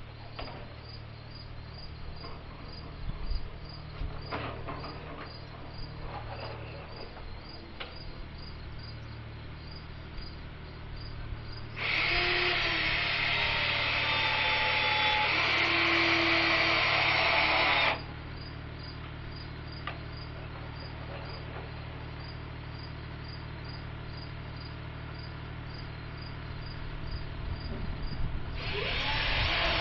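A power drill runs for about six seconds near the middle and starts again just before the end, most likely driving fasteners into wooden braces. Between the runs there are a few knocks, and crickets chirp in a steady pulse over a low steady hum.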